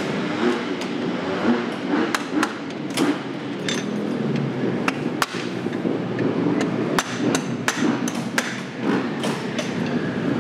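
Hand tools working on a dirt bike: about a dozen sharp taps and knocks at irregular intervals, like a mallet and screwdriver on metal, over steady background noise.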